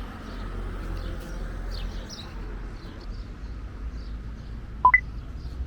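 Outdoor ambience: a steady low rumble with small birds chirping faintly. Near the end a short, loud two-note electronic blip jumps up an octave.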